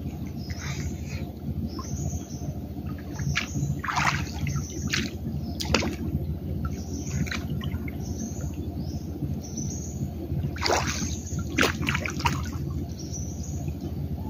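Water sloshing and splashing around a person wading chest-deep through floodwater, with a few sharper splashes, and birds chirping repeatedly.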